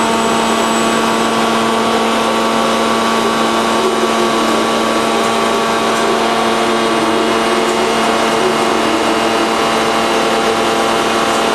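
Machinery of a robot-loaded Daewoo Puma CNC lathe cell running: a steady, loud mechanical hum with a constant low drone and several steady higher tones over a rushing noise.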